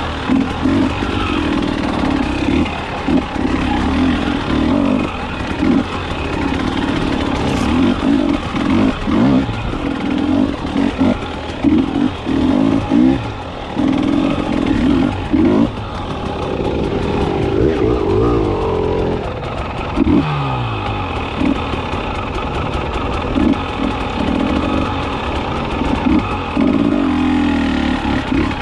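KTM 300XC two-stroke dirt bike engine being ridden over a trail, revving up and down in short irregular bursts as the throttle is worked, with a longer drop in pitch past the middle.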